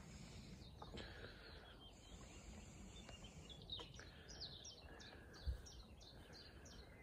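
Near-silent outdoor quiet with a small bird singing faintly: a run of short, high, falling notes, a few per second, from about halfway in. A soft low bump about five and a half seconds in.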